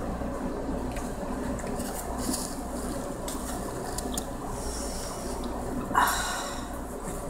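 Steady low room hum with a few faint scattered ticks, and one short, sharp sound about six seconds in that is the loudest moment.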